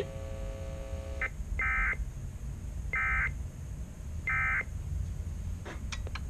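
EAS end-of-message signal from a Sage EAS Endec: three short, identical bursts of SAME digital data tones, about a second and a quarter apart, marking the end of the alert. A steady tone is held for about a second before the first burst.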